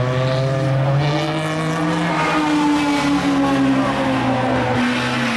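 MG Metro 6R4 rally car's V6 engine running at a held note as it drives past, its pitch sliding slowly lower over the last few seconds.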